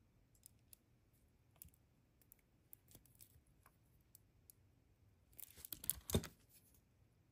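Faint, scattered small clicks, then a short cluster of louder clicks and rustling about five to six seconds in: jewelry pliers handling and opening a metal jump ring to attach a necklace clasp.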